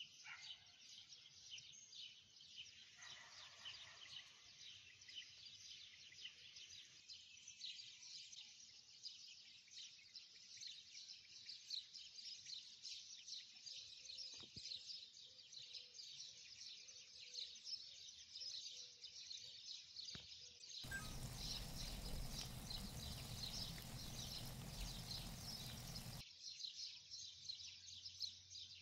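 Creamy pasta sauce sizzling faintly in a nonstick frying pan on the stove, a fine steady crackle. About two-thirds of the way in, a louder rush of noise covers it for about five seconds.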